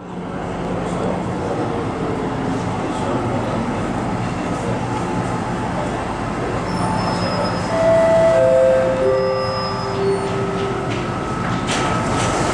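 MTR Island Line metro train pulling into the platform and braking: a steady rumble with a motor whine that falls in a series of steps, loudest about eight seconds in, settling to a steady hum as the train comes to a stop near the end.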